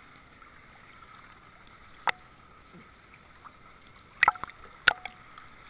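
Pool water lapping and gurgling against a camera held at the surface. Sharp knocks cut through it, one about two seconds in and two close together near the end.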